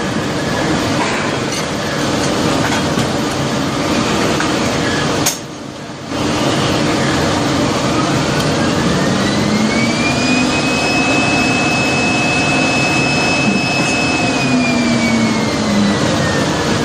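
Loud, steady drilling-rig floor machinery noise from engines and hydraulics, which briefly drops out about five seconds in. From about seven seconds a motor whine rises in pitch, holds for several seconds, then falls away near the end.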